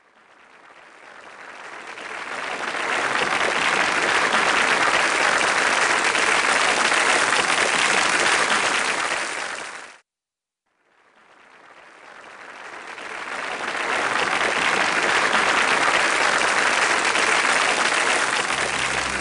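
Audience applause that swells up, holds, and fades away about halfway through, then after a brief silence swells up again. Music starts in under it near the end.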